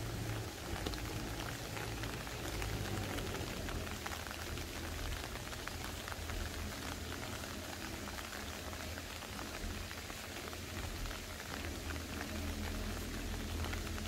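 Steady rain falling, a dense patter of small drop ticks, with a low rumble underneath.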